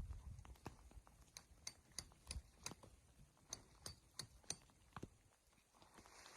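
Faint, irregular sharp clicks and snaps, about two or three a second, that die away about five seconds in.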